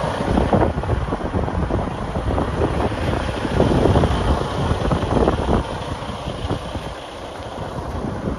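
Wind buffeting the microphone in uneven gusts, heaviest in the low end, with a lull about seven seconds in.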